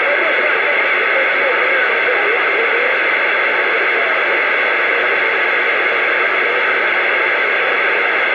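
CB radio receiver hissing with steady band static between transmissions. Faint warbling traces of distant signals sit under the hiss during the first few seconds.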